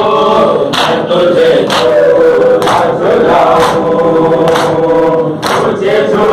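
A large group of men singing a noha in unison, with hands striking chests in a steady beat about once a second (matam).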